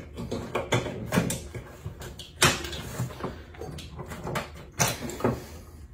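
Scattered clicks and knocks of wiring connectors and cables being plugged back in and pushed into an electric riding mower's battery compartment, the sharpest knock about two and a half seconds in.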